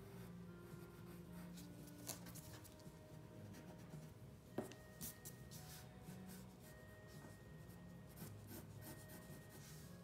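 Graphite pencil sketching on paper: faint, light scratching strokes as the outline is drawn, with one sharp tap about four and a half seconds in.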